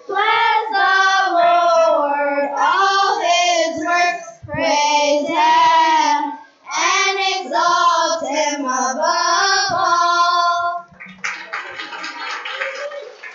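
Children's choir singing together, phrase after phrase with short breaks between them. About eleven seconds in the singing stops and clapping follows.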